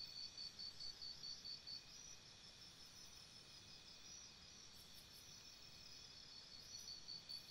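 Faint insect chirping: a high, evenly pulsed trill of about six pulses a second that fades in the middle and grows stronger again near the end.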